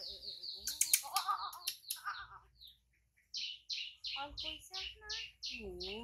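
A bird calling a quick, even series of about ten short, high chirps, roughly three or four a second, starting about halfway through. Before it there are a few sharp clicks and a soft voice.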